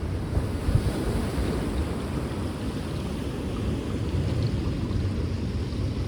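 Black Sea surf washing onto the shore: a steady, deep rush of breaking waves, briefly louder a little under a second in.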